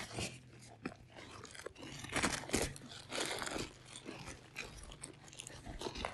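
Nylon fabric rustling and crunching as soft gear is pressed down into the top of a hiking backpack. The scrunches come irregularly and are loudest a couple of seconds in.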